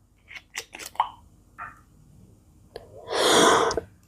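A few light clicks and taps, then about three seconds in a loud, harsh, breathy exhalation lasting just under a second, like a forced cough.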